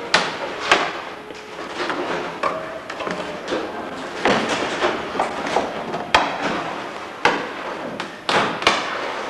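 Irregular knocks, taps and tearing noises of hands working on the wing of the 1930s Wittman Bonzo racing plane as its old fabric covering is cut from the rib stitching and peeled off.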